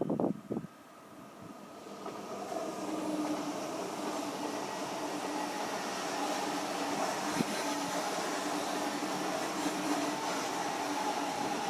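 A train approaching and running past on the tracks: its noise builds from about a second in, then holds steady with a low hum.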